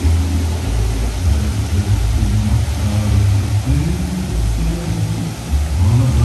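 Deep bass notes of a show soundtrack played loud over outdoor loudspeakers, shifting pitch every second or so with a rising swell about four seconds in, over a steady rushing hiss.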